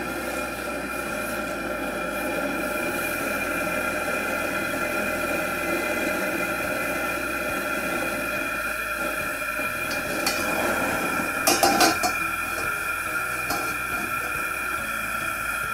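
Propane wok burner running with a steady roar and hiss under a carbon steel wok. A little after ten seconds in there are a few short metal clanks as the wok is turned over and set back onto the burner's support ring.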